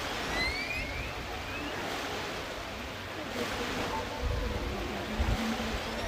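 Ocean waves washing, a steady hiss of surf, with a few short rising chirps about half a second in and low rumbles near the end.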